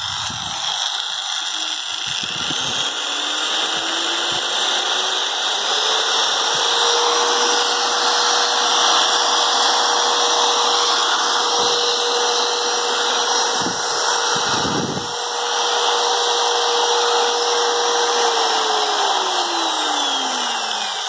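Hitachi corded angle drill's electric motor running on its lowest speed setting. Its whine rises as the motor spins up over the first few seconds, holds steady, and falls away as it winds down near the end. There are a couple of light handling knocks about two-thirds of the way in.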